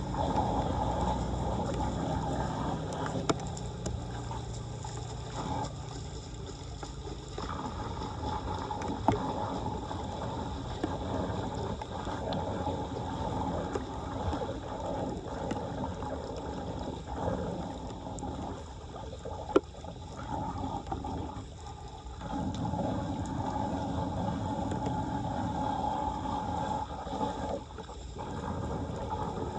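Floodwater running and gurgling into a street drain in a steady rush, with a few sharp knocks or clicks along the way.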